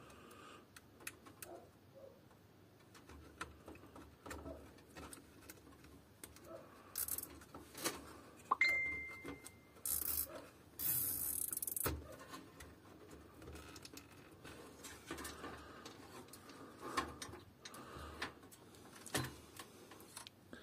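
Hands handling cables, ties and a motherboard inside a metal computer case: scattered small clicks, taps and rustles, with a few short scraping hisses around the middle and a brief high ring just before them.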